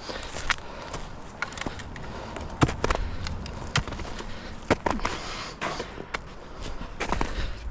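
Footsteps of a hiker walking off-trail, with irregular sharp snaps and cracks of sticks and debris underfoot, and a heavy breath about five seconds in.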